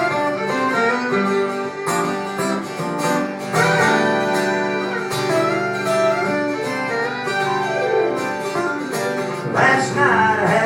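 Country band playing an instrumental intro with guitars to the fore, before the vocals come in.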